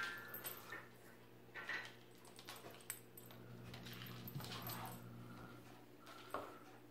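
A cat at play: scattered light clicks and rattles, with a brief higher sound about a couple of seconds in, over a low steady hum.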